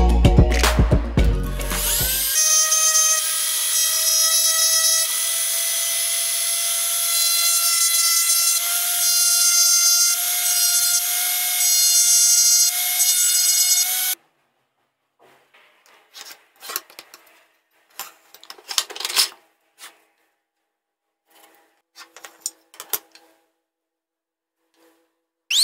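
Brief music, then a small handheld pen-style rotary engraving tool runs with a steady whine that creeps slightly up in pitch as its bit grinds lettering into wood. The whine stops suddenly about 14 seconds in. After that come only faint scratches and light taps from marking out a wooden block along a ruler.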